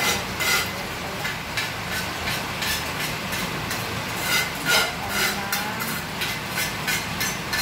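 A spoon clinking and scraping against a bowl and a frying pan on a gas stove, in many quick, irregular taps, over a steady hiss.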